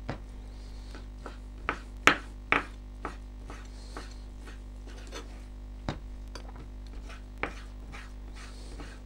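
Chef's knife dicing raw beef on a wooden cutting board: irregular knocks of the blade striking the board, a few louder than the rest, over a faint steady hum.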